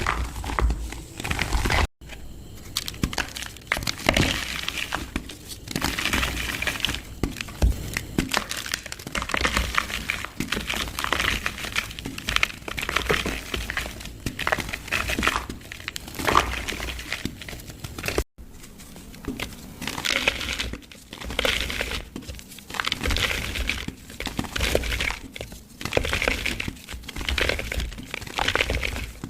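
Dried mud and dirt being crushed in a plastic pot: continuous irregular crunching and crackling as the clods break up, cutting out for an instant twice.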